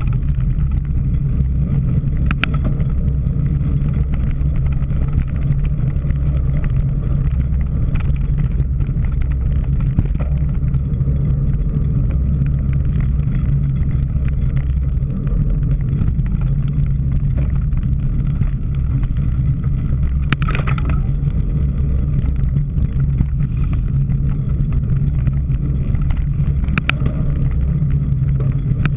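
Steady low rumble of wind and tyre noise on a bicycle-mounted camera while riding a cyclocross course, with a few brief clicks or rattles from the bike.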